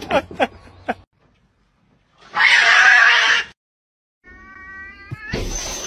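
A cat hisses loudly for just over a second. After a short pause it gives a drawn-out yowl, rising slightly in pitch.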